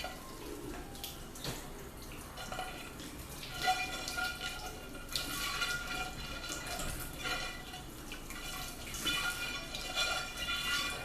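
Microwave parts, including the breakable glass turntable, being washed at a sink with a soapy sponge: water running and dripping, with scrubbing and a few light knocks.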